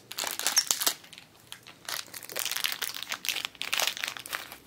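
Thin black plastic packaging wrapper crinkling as it is handled and pulled open by hand: a burst of crinkling for about a second, a short lull, then a longer stretch of crinkling that stops shortly before the end.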